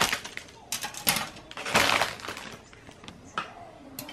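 Plastic model-kit runners clattering and clicking as they are handled and laid on a wooden table, with rustling of their clear plastic bag. A few short bursts, the loudest about two seconds in.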